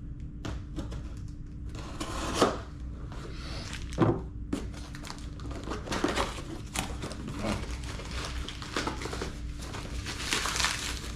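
A package being opened by hand: packaging rustles and crinkles with irregular clicks, and there are two thumps about two and a half and four seconds in.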